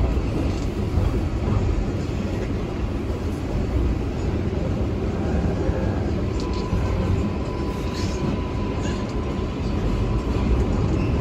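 Kawasaki R142A subway car heard from inside while running between stations: a steady, loud low rumble of wheels on track. A faint steady high tone comes in about halfway through, and a few light clicks can be heard.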